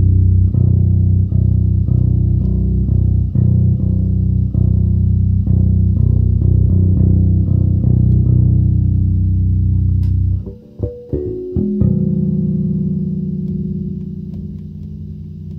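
Godin A5 Ultra fretless five-string acoustic-electric bass played fingerstyle: a steady run of plucked notes, a few each second. About ten seconds in the line breaks off into a few short notes, then a long note is held and rings on to the end.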